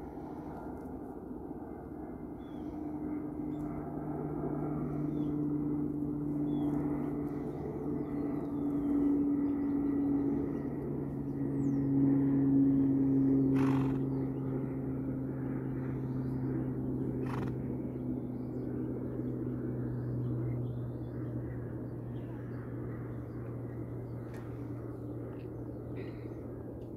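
A steady engine drone that grows louder towards the middle and drops in pitch as it passes, with scattered faint bird chirps and a couple of brief clicks.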